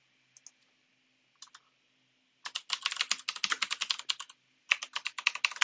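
Typing on a computer keyboard: a few isolated key clicks, then a fast run of keystrokes about two and a half seconds in, a short pause, and another quick run near the end.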